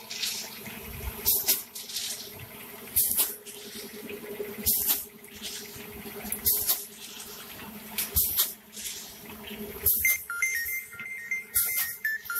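Automatic vertical snack pouch packing machine running: a steady hum with a short, loud hiss about every 1.7 seconds, once for each packet it fills, seals and cuts. From about ten seconds in, an electronic beeping tune plays as well.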